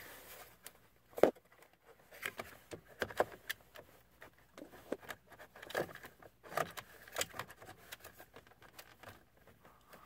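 Irregular plastic clicks, taps and scrapes of a turn-signal multi-function switch being worked by hand into its channels on the steering column, with one sharp knock about a second in as the loudest.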